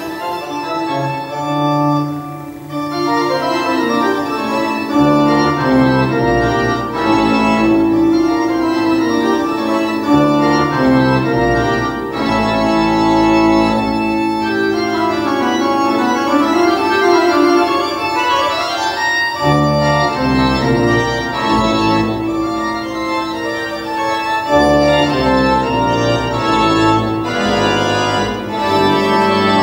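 Organ-led music played from a computer through a homemade stereo valve amplifier with EL34 output valves, built on the Mullard 5-20 design, and heard from its loudspeakers: long held chords.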